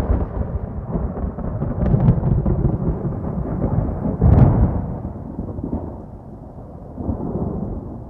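Deep rumbling booms of a production-logo sound effect, with sharp cracks at the start, about two seconds in and, loudest, just past four seconds in, then dying away.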